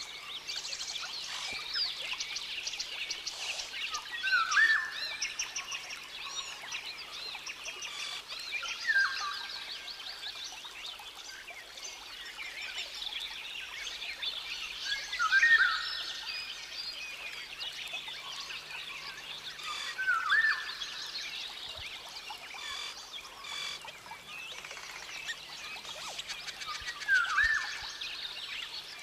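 Rainforest ambience: a dense, steady chorus of chirping creatures, with a loud call that sweeps sharply upward repeated five times, about every five or six seconds.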